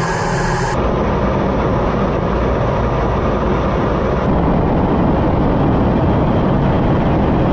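Loud, steady jet aircraft noise: a dense rumble and rush with no clear tone. It changes abruptly about a second in and again a little past halfway, as if cut between clips.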